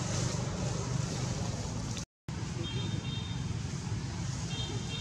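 Steady low outdoor rumble with a hiss above it, cutting out completely for a moment about two seconds in. Faint short high-pitched chirps come twice in the second half.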